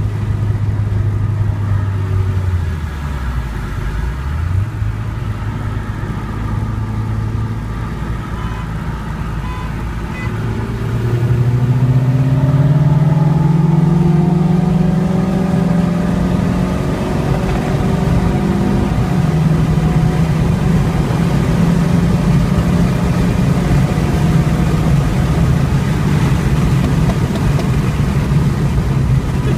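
Car engine and road noise heard from inside the cabin at highway speed. Early on the engine note dips briefly and recovers. About a third of the way in it climbs steadily in pitch and grows louder under hard acceleration, then drops back in pitch and holds steady at high speed.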